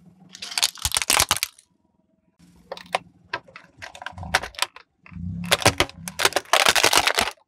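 Hard plastic cracking and snapping as it is crushed under a car tyre, in three bursts of sharp cracks. A low engine hum runs beneath the later bursts.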